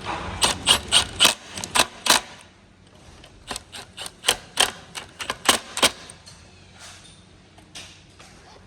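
Two runs of sharp clicks, a few per second, with a short pause between, from hand work fastening the seat depth lock plate onto an office chair's seat mechanism. A few fainter clicks follow near the end.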